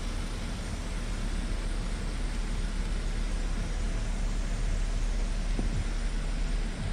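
Steady low rumble and hiss of room background noise, with no distinct events.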